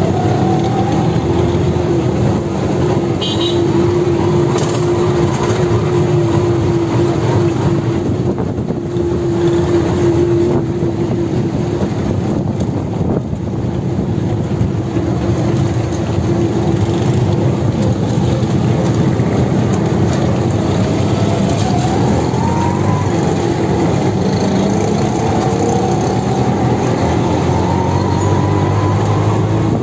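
Auto-rickshaw engine running steadily, heard from the passenger seat over road noise; its pitch rises in the last third as the rickshaw speeds up.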